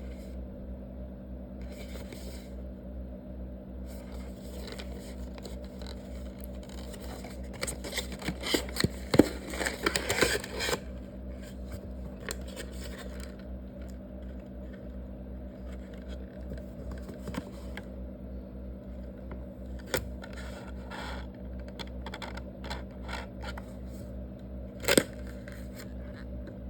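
Small objects being handled on a hard surface: a stretch of scraping, rustling and clicks about a third of the way in, then a few single sharp clicks, over a steady electrical hum.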